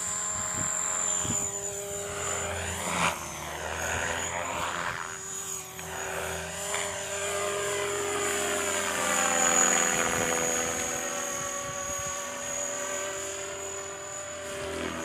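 Align T-Rex 500 electric radio-controlled helicopter in flight: a high whine from the motor and gears over the buzz of the rotor blades. Its pitch and loudness swell and fall as it moves across the sky.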